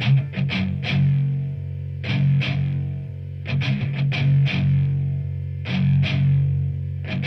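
Guitar music: clusters of strummed chords roughly every two seconds over a sustained low note.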